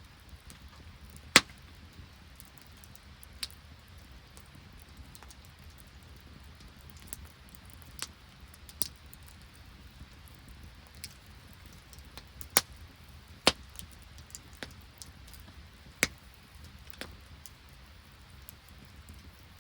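Open wood campfire crackling, with sharp single pops at irregular intervals over a low steady rumble.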